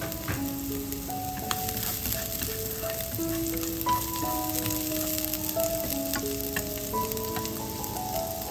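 Chopped shallots sizzling in hot oil in a frying pan, stirred with wooden chopsticks that click against the pan now and then. Soft background music with a slow melody plays over it.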